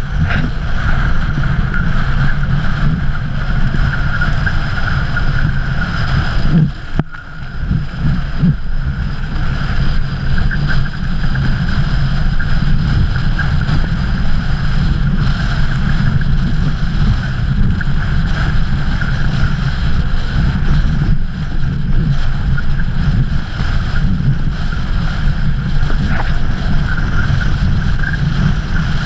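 Strong wind buffeting the camera's microphone as a kiteboard rides fast over choppy water: a loud, steady rumble with the hiss of the board and spray above it, easing briefly about seven seconds in.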